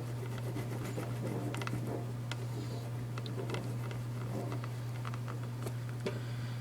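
Faint, irregular small clicks and scrapes of a plastic shotgun shell hull being cut open by hand, over a steady low hum.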